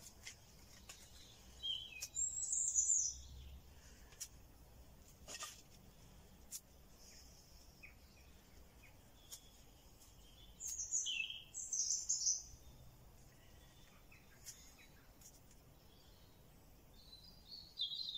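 Woodland songbirds singing three short bursts of high, chirping song, with faint scattered clicks and taps from twigs and kindling being handled.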